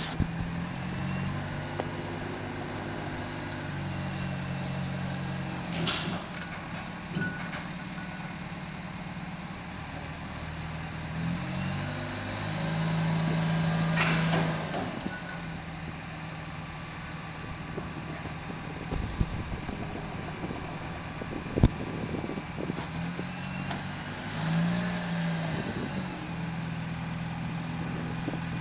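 Heavy diesel engines of a mobile crane and a prime mover running. The engine note rises and falls several times as the crane takes the load, loudest about halfway through, with a few sharp metallic knocks.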